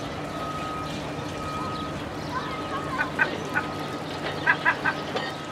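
A few short animal calls in two quick groups over a steady low hum, with a thin high steady tone coming and going.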